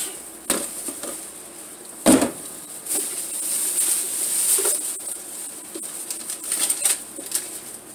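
A thin plastic shopping bag rustling and crinkling while plastic food storage containers are handled and pulled out of it, with scattered clicks and one sharp knock about two seconds in.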